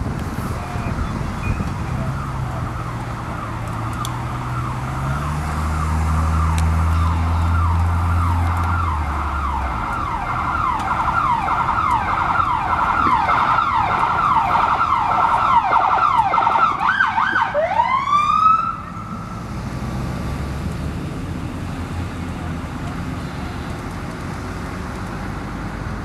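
An emergency vehicle's siren yelping in quick falling sweeps, growing louder for about fifteen seconds. It gives a last swooping wail and cuts off about eighteen seconds in. Under it, in the first ten seconds, a deep engine drone steps up in pitch.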